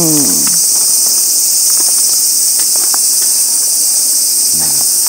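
Steady, loud, high-pitched drone of a chorus of insects in the surrounding summer trees.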